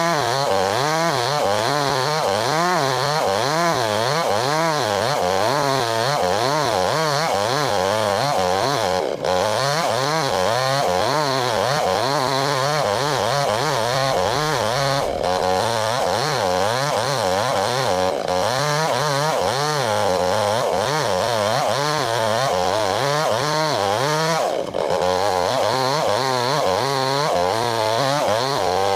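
Chainsaw running under load as it rips a log lengthwise, its engine pitch wavering up and down continuously through the cut, with a few brief dips.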